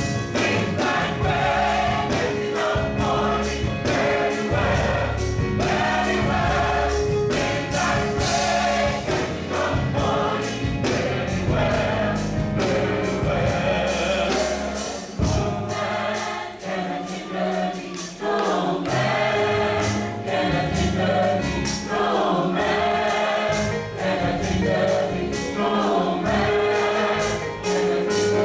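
A gospel choir singing with a live band: bass and drums keeping a steady beat under the voices. The bass drops out briefly about halfway through.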